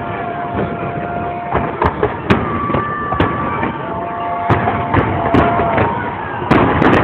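Fireworks salute bursting overhead: a string of sharp bangs and cracks, irregularly spaced and sometimes several close together, over a continuous din with long held tones running through it.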